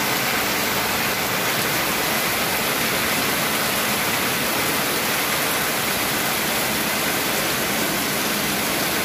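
Steady, loud rain falling.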